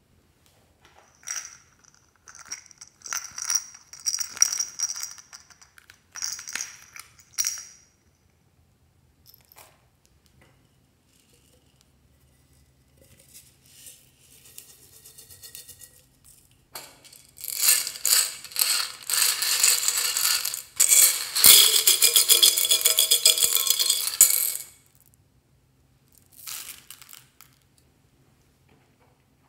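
Small plastic beads, foam balls and sprinkles poured from containers onto a tray of clear slime, scattering in short bursts of light clicking. The longest and loudest pour comes in the second half.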